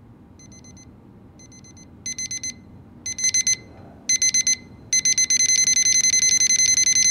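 Electronic alarm beeping: faint groups of rapid high beeps at first, then louder and longer groups that come closer together, turning into unbroken fast beeping about five seconds in.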